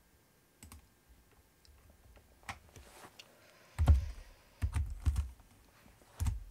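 Computer keyboard keystrokes: a few faint clicks, then a quick run of heavier keystrokes about four seconds in and one last keystroke near the end.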